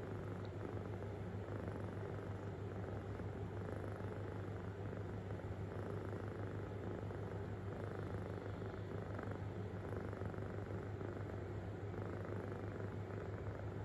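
Kitten purring deep and steady, without a break.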